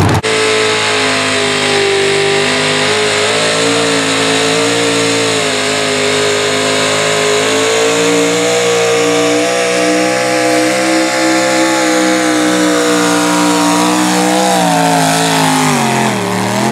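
Pro stock mini pulling truck's engine held at high revs under full load as it drags the weight sled, its pitch wavering slightly, then dropping near the end as the truck slows to a stop.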